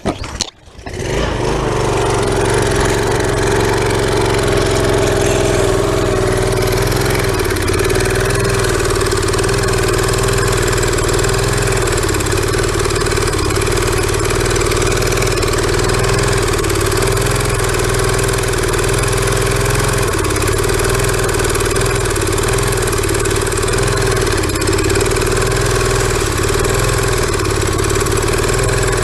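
Briggs & Stratton small engine on a pressure washer catching about a second in after a shot of ether, then running steadily. It is still clearing old, stale gasoline from its fuel system.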